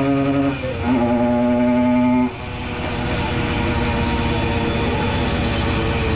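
Tuned 110 cc Simson two-stroke moped engine held at high revs at a steady high pitch on a roller dynamometer, with a brief dip just under a second in. At about two seconds in the throttle closes and the revs fall away to a lower, rougher running that slowly picks up again.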